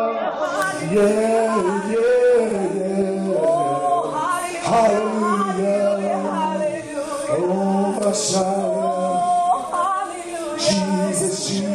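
Gospel worship singing, male and female voices holding and bending long notes of a slow praise song.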